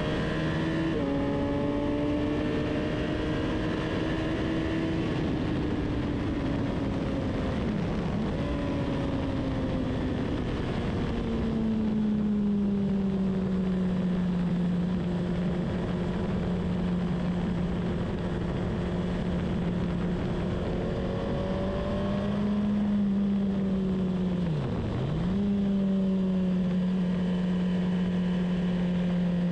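On-board engine of a track-day vehicle at speed. Its note climbs and falls with the throttle, drops at a gear change about a second in, holds steady for a long stretch in the middle, and dips sharply and recovers once near the end. A steady rush of wind and tyre noise runs under it.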